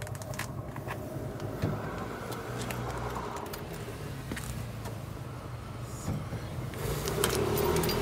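Keys jangling, with scattered short clicks over a steady low rumble that grows louder near the end.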